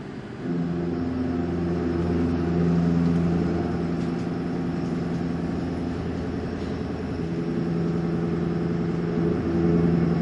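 Indexable-insert milling cutter on a CNC machining-centre spindle cutting metal: a steady pitched drone with overtones, growing louder about half a second in, easing a little partway through, then swelling again near the end.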